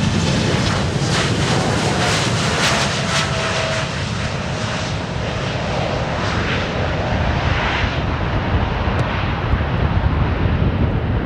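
Jet aircraft engines, a steady rumble with a hiss, heard outdoors at an airfield.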